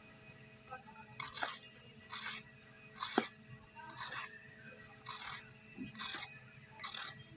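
Hand vegetable peeler scraping the skin off a bottle gourd (lauki) in short strokes, about one a second, seven times.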